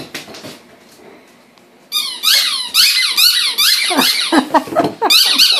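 A yellow Labrador chewing a rubber ring squeaky toy. After a quiet start, a quick run of squeaks begins about two seconds in, two or three a second, each rising then falling in pitch.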